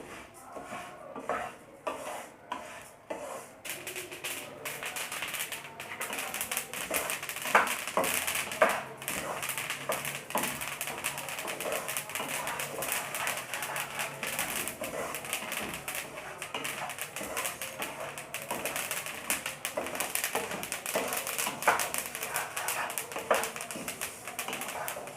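Flaxseeds dry-roasting in a hot pan, crackling and popping in a dense run of fine clicks that thickens about four seconds in, with a few louder pops. The crackling is the sign that the seeds are roasting.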